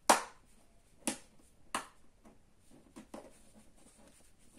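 Sharp clicks of a pry tool working an iPod Video's case open: three snaps in the first two seconds, the first the loudest, then fainter ticks about three seconds in.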